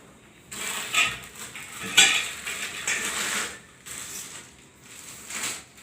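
Metal parts of a photo backdrop stand clattering and clinking as they are handled and fitted together, with a sharp click about two seconds in and another short rattle near the end.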